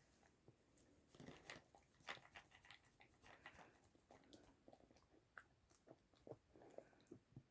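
Dachshund faintly chewing and crunching treats: a run of quick, irregular crunches and clicks starting about a second in.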